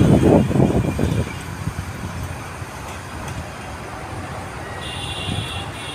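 Bangladesh Railway intercity passenger train's last coaches rolling past, wheels clattering on the rails, then the rumble dying down to a quieter steady noise as the train draws away.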